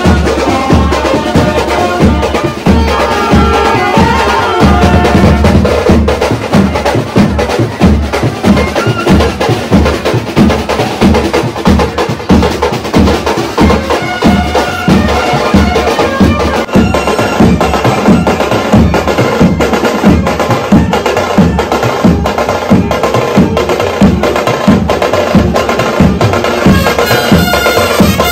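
Koli brass band playing: clarinet and trumpets carry the tune over a steady, driving drum beat.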